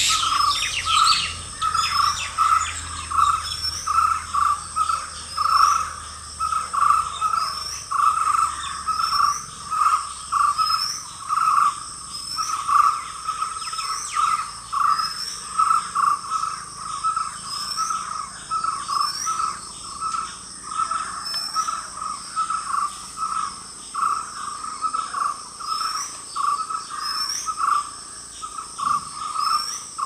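Outdoor bird and insect chorus. A bird call repeats steadily two or three times a second, with a higher, short rising chirp about every second and a half over a steady high insect buzz.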